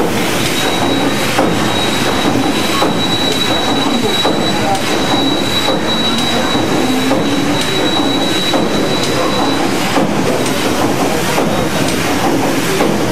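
Paddle steamer Waverley's three-cylinder triple-expansion steam engine running under way: a loud, steady mechanical clatter with a regular knocking, and a thin high whine held through most of it.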